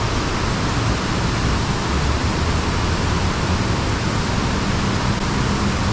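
Water pouring over a spillway dam: a steady rushing roar that does not change.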